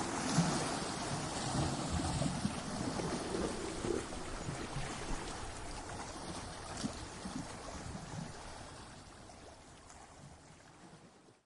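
Ocean surf against coastal rocks: a wave's wash with water churning and trickling back, fading steadily over several seconds.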